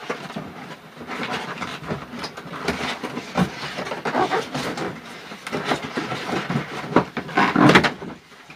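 White foam packing insert being worked loose and pulled out of a cardboard box: irregular scraping, rubbing and rustling of foam against cardboard, loudest shortly before the end.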